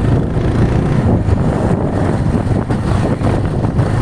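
Steady low rumble of wind buffeting the microphone together with the road noise of a moving vehicle.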